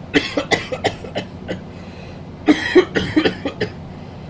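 A man coughing in two fits of several quick, short coughs, the first just after the start and the second about halfway through.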